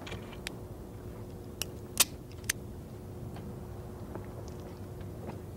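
Unloaded double-action revolver being dry-fired: sharp metallic clicks of the trigger pull and hammer fall on an empty chamber. Three clicks come close together about two seconds in, the middle one loudest, with fainter ticks later, over a faint steady hum.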